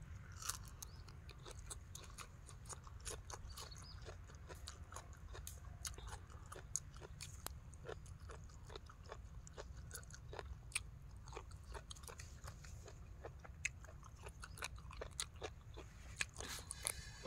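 A person chewing and crunching raw vegetables and spicy papaya salad up close, with many irregular crisp crunches and wet mouth sounds over a steady low background hum.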